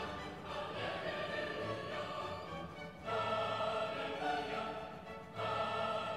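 Classical-style background music with sustained choir-like voices, in phrases that swell anew about three seconds in and again near the end.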